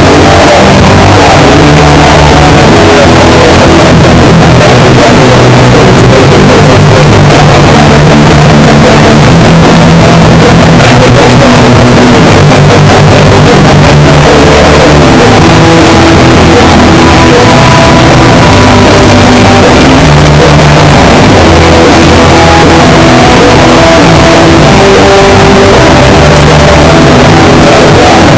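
Street punk band playing live: electric guitars, bass and drum kit, very loud and squashed near full scale throughout, with the bass stepping between held notes.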